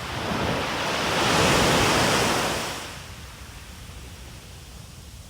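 Sea waves surging and washing back. One wave swells in, loudest about a second and a half to two seconds in, and ebbs away by about three seconds in.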